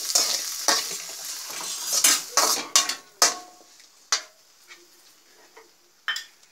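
A slotted steel spatula scrapes and clanks against a metal kadai as chopped tomatoes and onions are stirred, sizzling in oil. The sizzle and scraping die away about three seconds in, leaving a few light taps and a sharp clink near the end.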